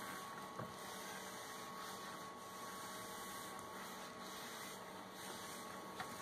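Quiet, steady background hiss of room tone with a faint constant tone; two small ticks, one about half a second in and one near the end.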